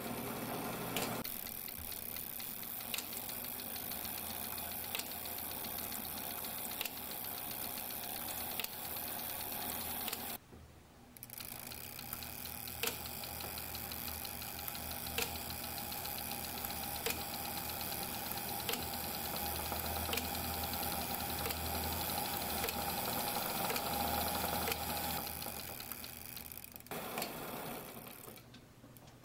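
Old Argo mechanical taximeter driven through its cable by a speedometer test machine: a steady whir of turning gears, with a sharp click about every two seconds as the meter runs up its fare.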